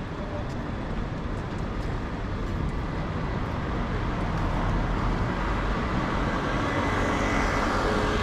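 Road traffic noise in a city street, a vehicle growing louder as it approaches over the last few seconds.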